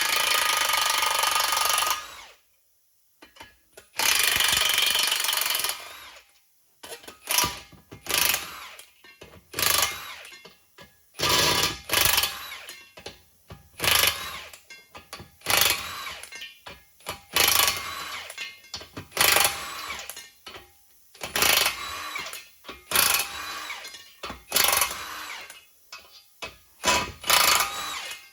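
Impact wrench running on the bolts of a multi-piece Humvee wheel: two long runs of about two seconds near the start, then a string of short bursts about once a second as the nuts are run down one after another.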